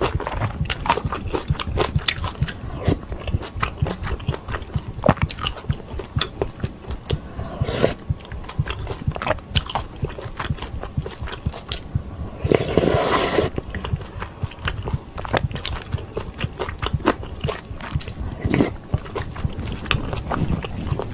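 Close-miked eating sounds of ramen noodle soup with rice cakes and dumplings: quick wet chewing and mouth clicks throughout, with one louder slurp lasting about a second roughly two-thirds of the way through.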